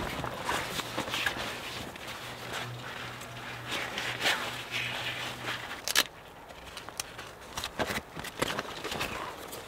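Russian Ratnik 6SH120 shelter tarp rustling and crinkling as it is lifted and handled. There is one sharp snap about six seconds in, then lighter scattered rustles and ticks as its cords are worked.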